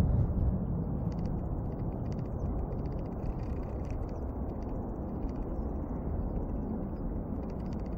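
Low, steady rumble of a distant Airbus A321's jet engines after touchdown, slightly louder at first, with faint high ticks over it.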